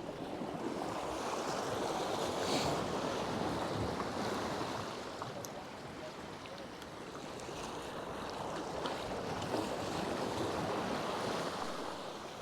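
Waves washing against a rock jetty, swelling twice and easing between, with some wind on the microphone.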